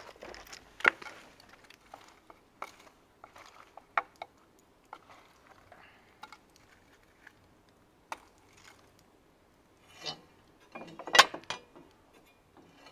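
Scattered metallic clicks, clinks and knocks from the small metal firebox hatch in the brick base of a homebuilt wood-fired smoker being handled. A denser cluster of louder clanks comes about eleven seconds in.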